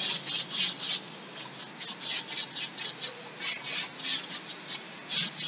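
Blackboard duster wiping chalk off a blackboard in quick back-and-forth strokes, a rhythmic dry rubbing swish.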